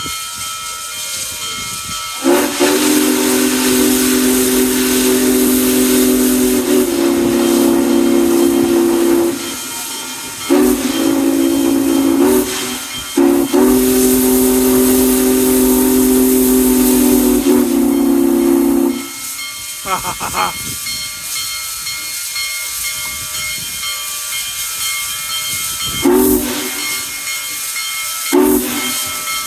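Union Pacific 4014 Big Boy steam locomotive blowing its whistle: three long-held blasts with a short one in the middle, then two brief toots near the end, over a steady hiss of steam.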